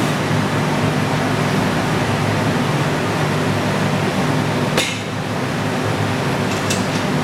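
Steady hum and rush of a floor fan, with one sharp metal clank about five seconds in as the leg press sled is set down in its rack.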